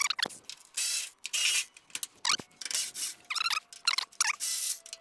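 Garbled microphone audio: a run of short squeaks that bend in pitch, broken by hissing, raspy bursts, from a malfunctioning microphone.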